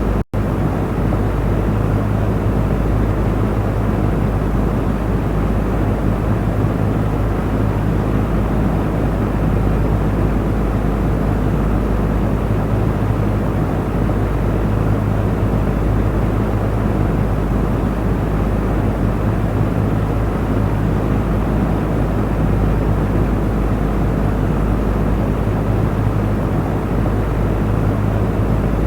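Electric fan running steadily: an even whooshing rush of air over a low motor hum. There is a brief dropout just after the start.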